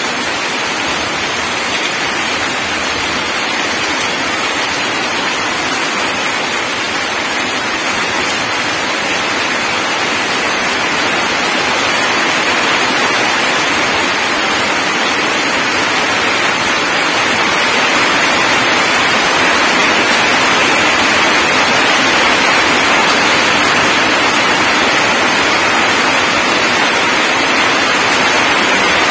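Heavy rain pouring onto wet gravel and puddles, a steady hiss of countless splashing drops that grows a little louder about halfway through.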